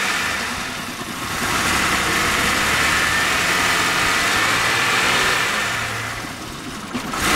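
2006 Buick Rendezvous V6 running on gasoline vapor drawn from a homemade vaporizer, with its fuel shut off, revving with the pedal held down while air rushes into the intake. Near the end the engine sags as it nearly stalls, then picks back up.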